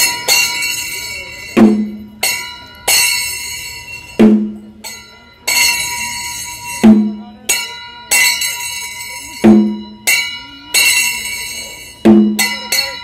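Temple percussion: a drum struck in a slow repeating pattern, a deep stroke about every two and a half seconds with lighter strokes between, over steadily ringing metal bells or cymbals.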